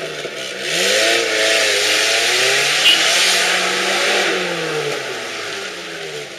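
Suzuki SJ 4x4's engine revving up and down as it claws up a steep, muddy slope, over a steady hiss. There is a brief knock about three seconds in.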